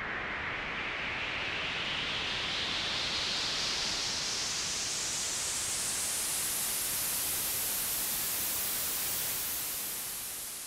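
White noise from Logic Pro X's ES P synthesizer played through its filter with the cutoff automated upward: a hissing riser that grows steadily brighter over about seven seconds, holds at full brightness, then fades in level near the end. This is the classic white-noise filter-sweep build-up effect.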